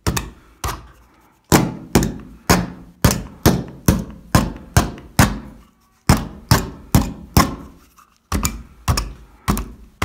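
A knife blade hacking into a fibrous plaster ceiling, roughing up the surface so adhesive will grip. The sharp knocks come about twice a second, in runs broken by short pauses about a second in, near six seconds and near eight seconds.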